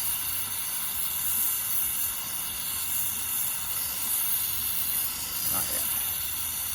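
Jeweller's soldering torch flame hissing steadily while it heats a silver ring and gold cross, waiting for the solder to flow.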